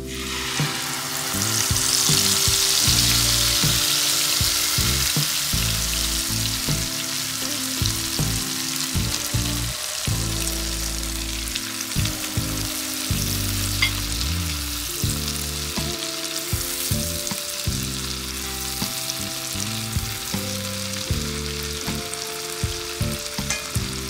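Ground chili-and-spice paste sizzling in hot oil in a nonstick frying pan, swelling loudest a couple of seconds in as the paste hits the oil and then easing to a steady frying. A plastic spatula scrapes and taps the pan as it is stirred, and background music plays underneath.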